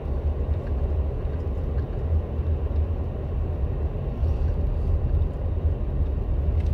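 Car driving slowly, heard from inside the car: a steady low rumble of engine and tyre noise with no distinct events.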